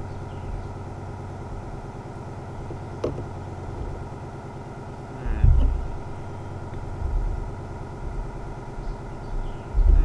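A steady engine-like hum made of several even tones, with a faint click about three seconds in and low thumps about five and a half seconds in and near the end.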